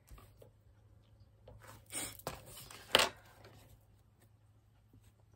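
Paintbrush scrubbing and tapping against a watercolour paint palette: a short scraping rub about two seconds in, then a sharp tap about a second later, over a faint steady low hum.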